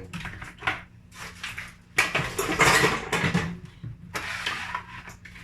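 Dishes being soaped by hand in a stainless steel basin: a run of clinks and knocks, then two longer stretches of rubbing and scrubbing noise.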